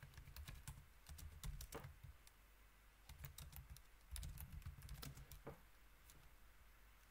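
Faint typing on a computer keyboard: irregular key clicks with short pauses between runs.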